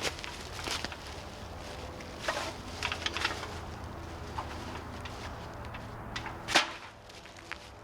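Hands handling camp gear: scattered rustles and light clicks, with one sharper knock about six and a half seconds in.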